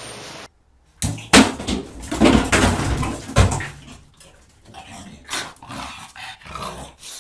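A pug dashing about a small bathroom: loud scuffling and sharp knocks for about three seconds, then a string of short dog noises, two or three a second.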